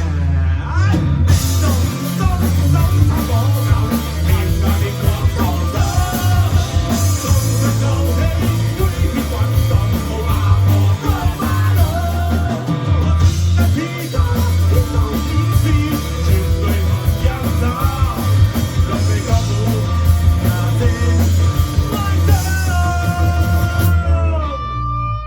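Rock band playing live: drums, bass and electric guitar with shouted vocals. Near the end the band stops and a single held note rings on, sliding down in pitch as it fades.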